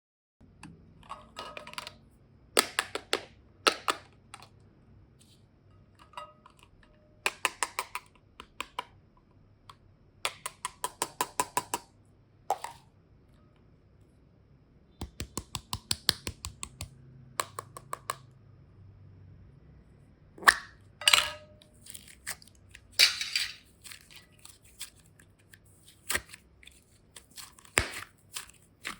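Close-up ASMR handling sounds: bursts of rapid, crisp clicking and crackling, each lasting a second or two with short pauses between.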